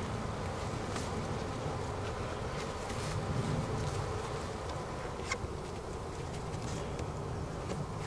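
Honeybees buzzing around an open hive, a steady low drone, with a few short knocks as the wooden hive parts are handled.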